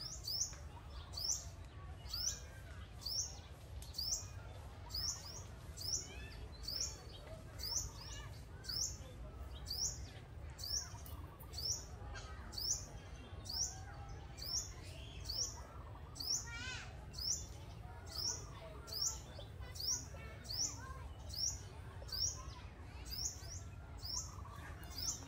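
A bird repeating a short, high chirp at a steady pace of about one and a half calls a second, over a steady low rumble.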